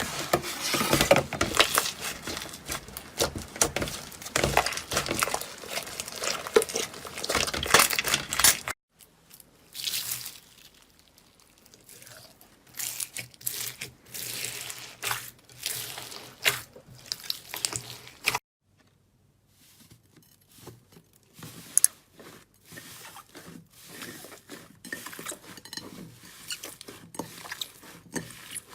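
Slime being squished and worked: dense wet clicking, popping and crackling. It comes as three separate stretches, split by sudden cuts about 9 and 18 seconds in, with the first the loudest and busiest.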